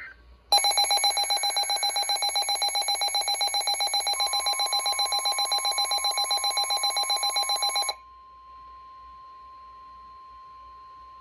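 NOAA weather alert radios sounding their tornado-warning alarm, a loud, rapidly pulsing beep for about seven seconds. About halfway through, the broadcast's steady warning alarm tone joins in and runs on alone, quieter, after the radios' beeping stops.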